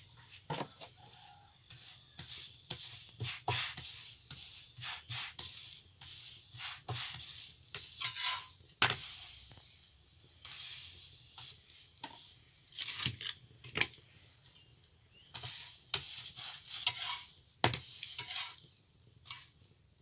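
Metal spatula scraping and pressing a palak paratha on a hot tawa in short, irregular strokes, with sizzling from the cooking and a few sharp clicks of metal on the griddle.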